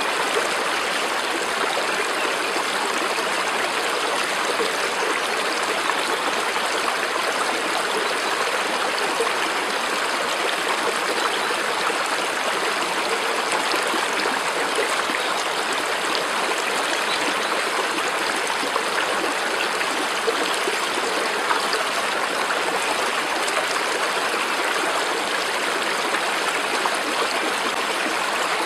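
Steady rushing of a flowing stream over rocks, an even, unbroken water sound.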